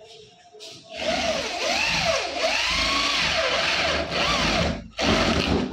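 Corded electric drill with a flat spade bit boring into a wooden door's face for a lock. The motor's pitch sags and rises as the bit bites. It starts about a second in, runs for about four seconds, stops briefly, then gives one short final burst.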